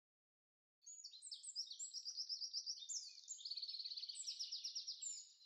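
Songbird singing a fast, unbroken song of high chirps, rapid trills and buzzy notes. It starts about a second in and fades near the end.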